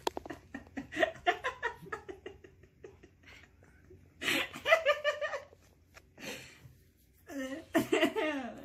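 People laughing in several bursts, with breathy giggling: about a second in, louder around four seconds in, and again near the end.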